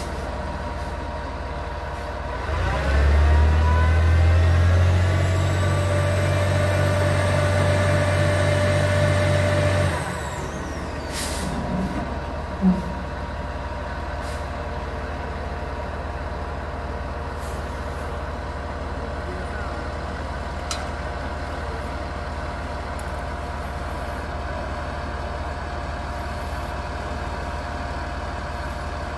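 Truck engine towing a houseboat on its trailer up the ramp out of the water. It works hard under the heavy load from about three seconds in until about ten seconds, then drops back to a steady idle. A single brief sharp sound comes a couple of seconds later.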